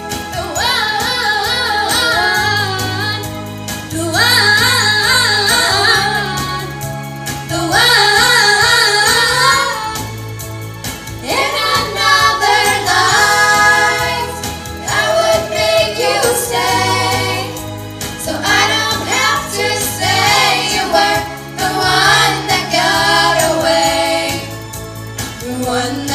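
Female pop vocal group singing in harmony through microphones, the voices wavering in held phrases over sustained low bass notes.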